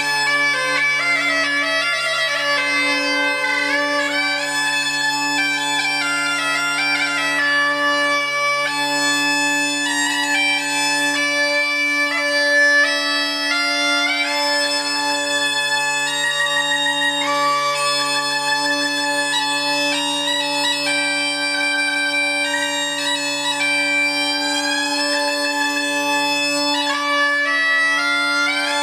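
Bagpipe playing a tune: a moving chanter melody over steady, unbroken drones.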